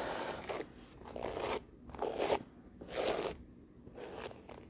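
Hairbrush drawn through long hair in about five strokes, roughly one a second.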